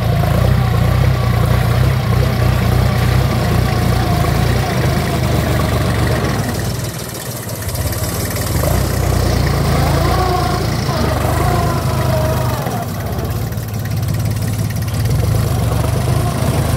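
Iseki 35 tractor's diesel engine running under load while pulling a disc plough through dry soil. It is briefly quieter about seven seconds in.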